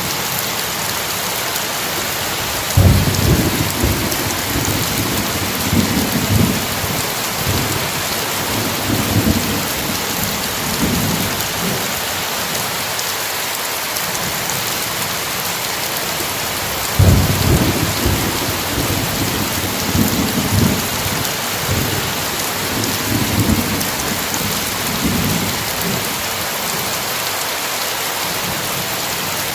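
Steady rain hissing throughout, with a roll of thunder rumbling in waves from about three seconds in and a second roll about seventeen seconds in.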